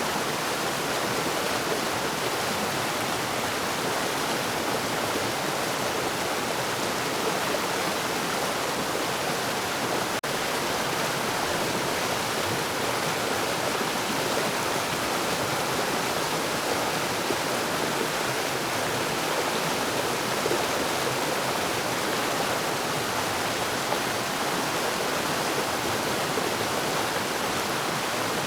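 Forest waterfall: a steady, continuous rush of falling water, with a momentary dropout about ten seconds in.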